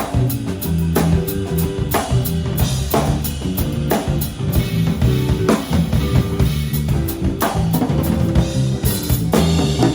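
Live trio of drum kit, electric bass and guitar playing, with the drums to the fore: kick drum, snare and rimshot hits over a steady bass line.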